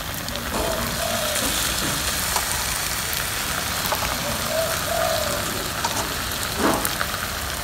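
Water poured from a plastic cup into a hot pot of paella rice on a portable gas stove, giving a steady sizzling hiss.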